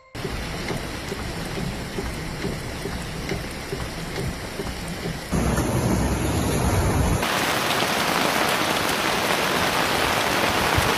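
Heavy rain pouring steadily. The sound changes abruptly about five seconds in and again about seven seconds in, with a deeper rumble between those two changes.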